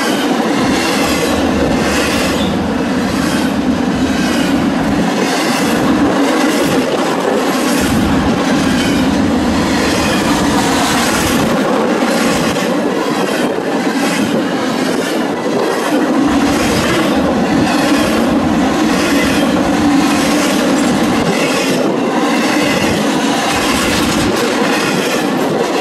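Double-stack intermodal freight train's container well cars rolling past at speed: a loud, steady rumble of steel wheels on rail, with repeated clacking as the wheels cross rail joints.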